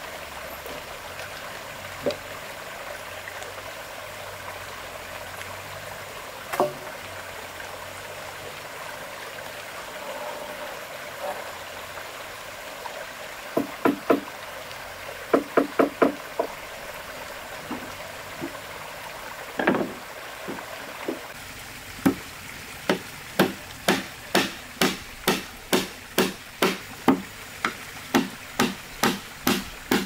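Hammer striking the wooden deck planks of a footbridge, nailing them down: scattered knocks and short clusters of blows at first, then from about two-thirds in a steady run of strikes, about two a second, over a steady background hiss.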